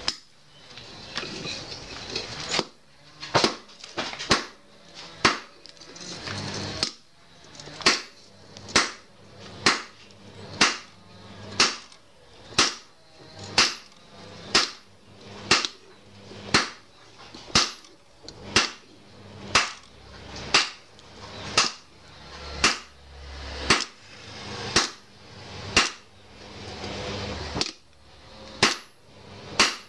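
Hammer blows on a red-hot 52100 bearing-steel parang blade lying on a round steel anvil block: a sharp metallic strike with a short ring about once a second, starting a few seconds in and keeping an even rhythm.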